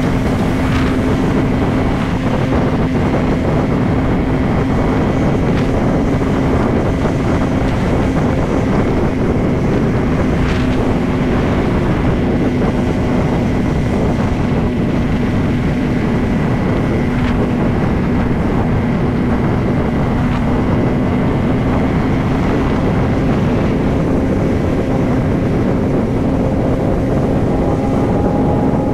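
Motorcycle engine running at a steady cruising speed, its even drone mixed with heavy wind noise on the microphone.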